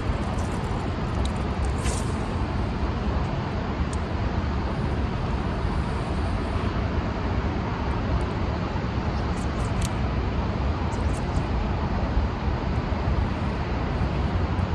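Steady low rumble of outdoor background noise, with a few faint ticks now and then.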